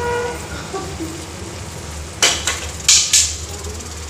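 A steel spoon clanking and scraping against a steel kadhai and bowl, about four sharp metallic knocks in quick succession past the middle, as ground tomato is tipped into the frying masala, with a low frying sizzle underneath.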